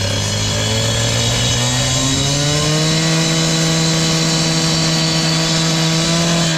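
Gas-powered cut-off saw running at high revs, its blade cutting through a concrete paver. The engine pitch rises over the first few seconds, then holds steady.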